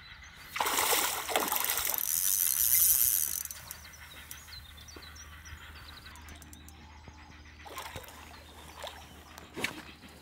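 Hooked fish thrashing at the water surface: a loud burst of splashing starts about half a second in and lasts nearly three seconds, then a couple of short splashes come near the end.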